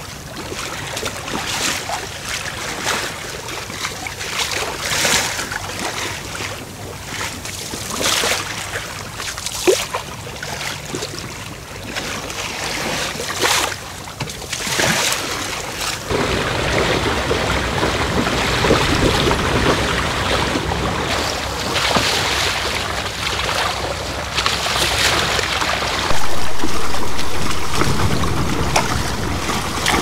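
Sea water rushing and splashing along the hull of a Beneteau Oceanis 41 sailing yacht under way, with repeated splashes as waves break against the side. From about halfway it gets louder, with wind on the microphone.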